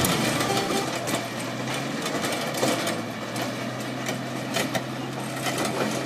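Komatsu D475A bulldozer ripping rock under load: a steady diesel engine hum beneath a dense, irregular clatter of knocks from the tracks and breaking rock.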